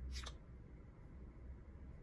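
A brief scrape a fraction of a second in as an Apple Watch slides out of a snug protective cover, over a faint low hum.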